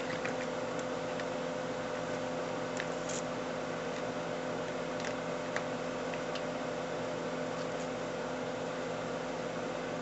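Steady hum of running electric-motor equipment, a drone with a few fixed pitches that does not change, with a few faint light ticks over it.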